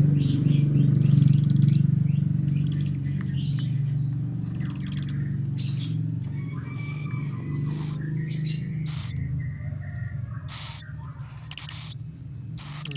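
Baby owl (owlet) giving repeated short, rasping hiss-screech calls, roughly one a second and louder near the end, over a steady low hum.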